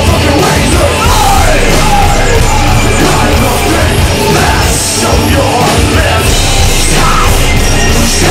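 Live rock band playing loud: guitars, keyboards and drums with shouted vocals, heard from within the crowd.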